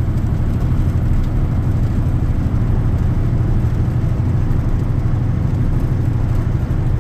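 Semi truck's diesel engine running steadily under way, a constant low drone heard from inside the cab along with road noise.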